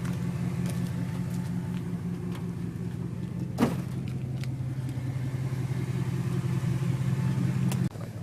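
Vehicle engine running steadily, with a single sharp click about three and a half seconds in; the engine sound cuts off abruptly near the end.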